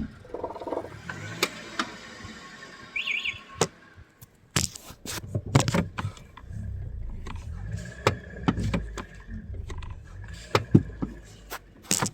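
Sharp knocks and clicks at irregular intervals over a low rumble inside a Toyota Corolla E150. The owner's complaint is a single knock from the car when braking.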